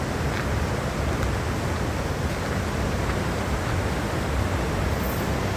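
Steady rushing outdoor noise with an uneven low rumble underneath, like wind or water heard on an open hillside.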